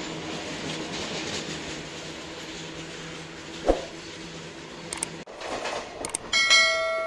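A freight train's open wagons rolling past on the rails, a steady rumble of wheels with one sharp metallic clank about halfway through. Near the end a loud bell-like chime rings out and fades.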